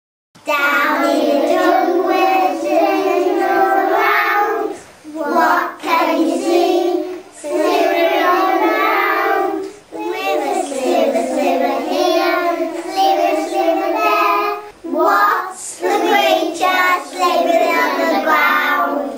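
Young children singing a song, starting a moment in after a brief silence, in phrases broken by short pauses.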